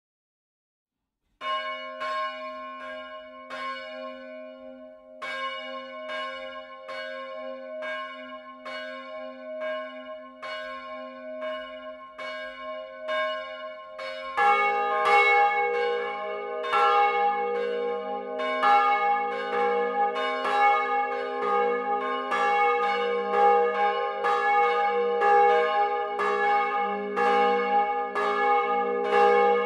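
Bronze church bells swinging in their tower. The smallest bell, a 200 kg C bell cast by Kaiser in 1831, starts ringing about a second and a half in, struck about one and a half times a second. About halfway through, a lower, 450 kg A-flat bell from the same founder joins, and the peal grows fuller and louder.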